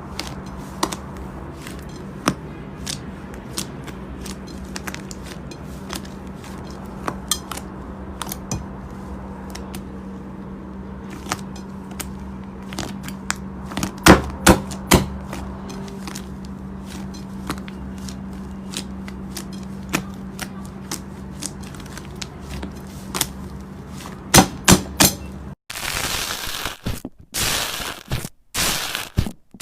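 Slime being squeezed and pressed by hand, giving scattered sharp pops and clicks over a steady low hum, with a few louder pops in pairs. Near the end the hum stops and the slime gives dense crinkly crunching sounds.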